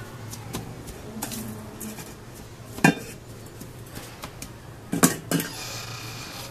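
Shaved ice being scooped from a stainless steel bowl with a plastic scoop and packed into a paper cup: light scraping and small clinks. There is one sharp knock about three seconds in and a quick double knock about five seconds in.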